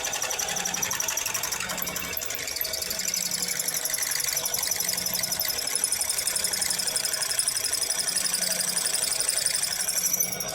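A small engine running steadily with a fast, even pulsing rhythm and a high-pitched whine over it.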